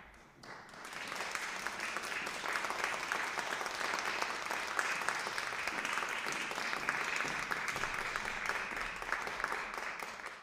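Audience applauding, building up over about the first second and then holding steady.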